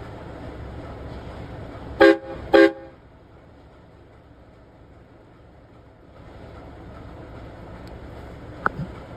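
Two short blasts of a compressed-air train horn fitted to a vehicle, sounding a chord of several notes about two seconds in, half a second apart, over a steady vehicle hum.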